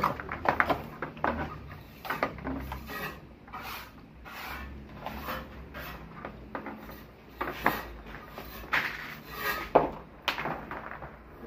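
Irregular rubbing, scraping and knocking of an electrical wire being measured out and handled by hand, with a louder knock about ten seconds in.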